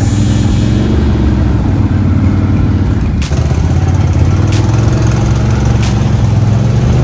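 ATV engine running at a steady pace on a muddy trail ride, with a few sharp knocks in the second half.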